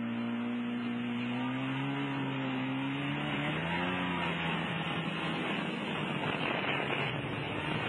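Personal watercraft engine running under way, its pitch stepping up about four seconds in, with a loud rush of spray and wind over the hull that grows in the second half.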